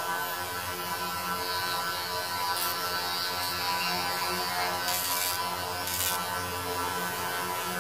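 A steady electric buzz, with a few brief rattles and scrapes of small metal and plastic parts being handled.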